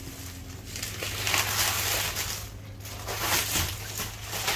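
Plastic mailer bag and clear plastic wrap rustling and crinkling as a boxed kit is pulled out of them. The rustling is loudest from about a second in to halfway through, and again in a shorter spell near the end.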